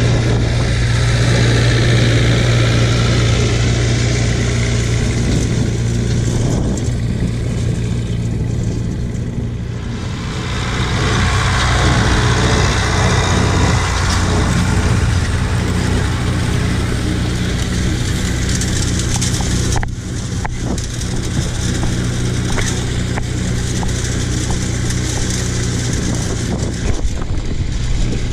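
Leyland 272 tractor's diesel engine running steadily at working speed as it tows a wheel rake past, its rumble louder and rougher as it passes close, with a short break about two-thirds through.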